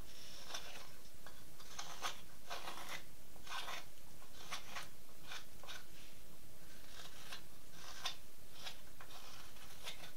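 Carving knife paring shavings off the bill of a pine duck decoy: short scraping cuts, roughly one or two a second at irregular spacing, as the bill is rounded off and evened up.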